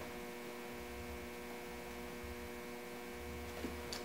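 Steady electrical mains hum under low room tone.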